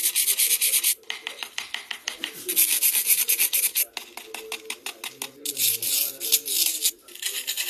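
Rapid scratching and scraping strokes on a Mine It Diamond dig kit, played from a TikTok ASMR clip, in bursts of a second or so with short breaks.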